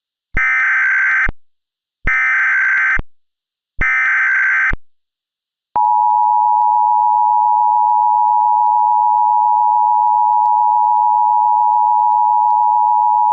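Emergency Alert System SAME header: three screechy digital data bursts of about a second each. About six seconds in, the EAS attention signal starts, a steady two-tone 853/960 Hz alarm tone that marks the start of a new alert.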